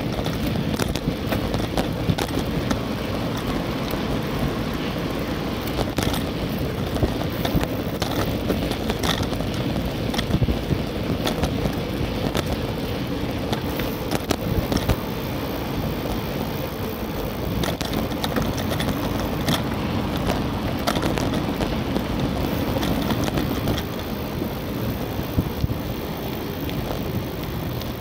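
Steady rush of wind and tyre noise from a moving bicycle, broken by frequent small knocks and rattles.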